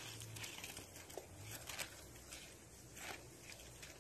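Faint scattered rustles and light crackles of leaf litter and undergrowth being disturbed.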